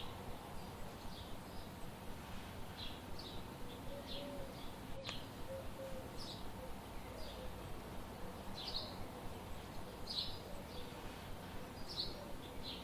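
Small songbirds chirping: short, high chirps repeating about once or twice a second over a steady background hiss, with a single sharp click about five seconds in.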